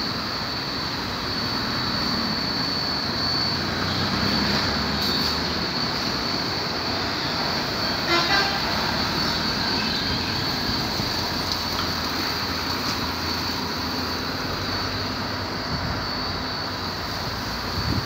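Automatic rollover car wash running: a steady rush from its rotating brushes and water spray, with a constant high whine. A short, sharper sound stands out about eight seconds in.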